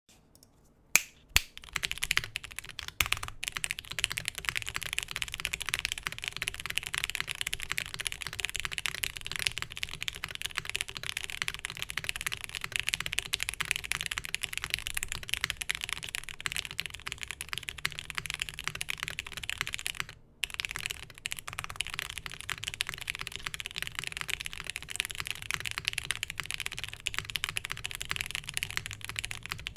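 TKD Cycle7 aluminium mechanical keyboard with lubed Gateron Milky Black linear switches and GMK keycaps, typed on rapidly and without a break. Two sharp clacks come about a second in, then a dense stream of keystrokes follows, with one short pause about two-thirds through.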